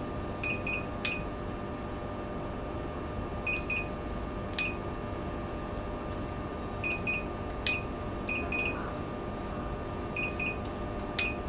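Plasma beauty device at work on the skin: short high-pitched beeps in pairs, five pairs a few seconds apart, most followed by a sharp click, over a steady electrical hum. The beeps and clicks come with the plasma probe's output during the acne treatment.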